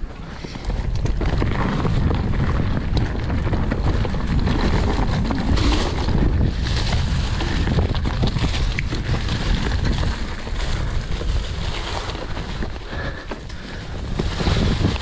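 Wind buffeting the microphone and the rumble of a mountain bike's tyres and frame as it rides down a dirt trail, with a few sharp clicks and knocks from the bike.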